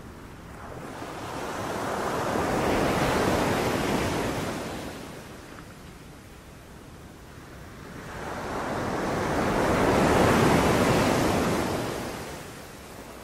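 Sea waves breaking and washing up a beach: two waves swell and fall away about seven seconds apart, with no human activity.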